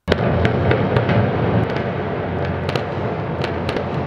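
Timpani played loudly in a fast roll, starting abruptly, with sharp cracking strokes scattered through the deep rumble.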